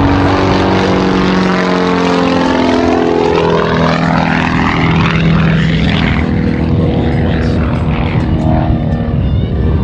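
Pitts S-1S aerobatic biplane's engine and propeller running loud in a flypast, its pitch dropping as it goes by.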